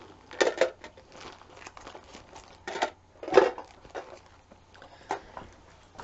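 Handling noises: a few sharp clicks and knocks with crinkling and rustling as a small hard case and a wooden scroll frame of cross-stitch fabric are handled and moved, the loudest knock about three and a half seconds in.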